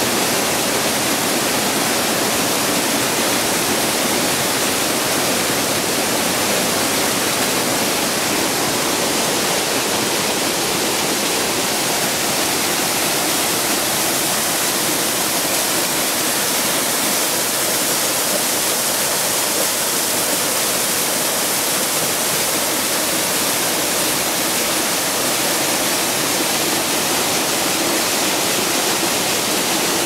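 Waterfall cascading down a rocky stream bed over boulders: a steady, unbroken rush of falling and splashing water.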